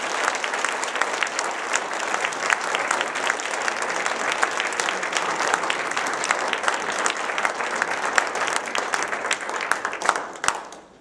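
An audience applauding: many hands clapping in a dense patter that dies away in the last second or so.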